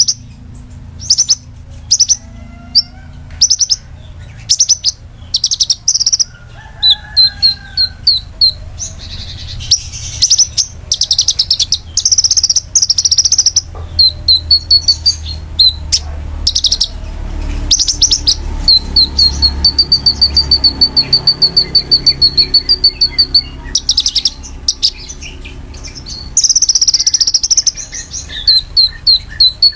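White-rumped shama singing loud, sharp, high-pitched calls in quick bursts, with a long fast trill of evenly repeated notes in the middle.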